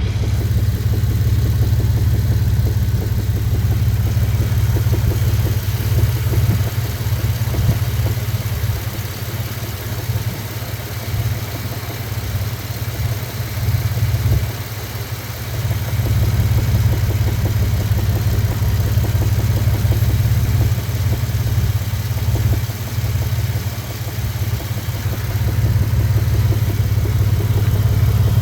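2000 Dodge Dakota's 3.9-litre V6 engine running steadily with a knock, which the owner cannot identify.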